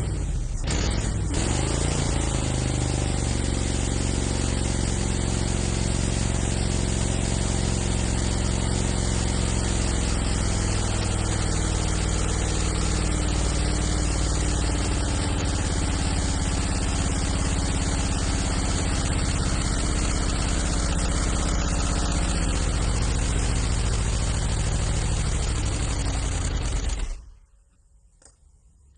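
Old engine picking up speed in the first couple of seconds, then running steadily with a low rumble, and cutting off suddenly near the end.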